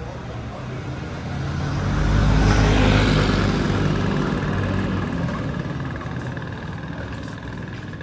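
Motor scooter passing close by, its small engine growing louder over about two seconds, then fading as it rides away down the street.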